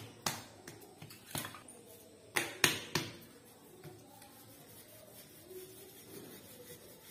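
Sharp knocks and taps on a stone countertop, about seven in the first three seconds, the loudest pair close together in the middle, as a ball of dough is pressed flat and a wooden rolling pin is set to it. After that comes only the faint rub of the rolling pin rolling out the dough.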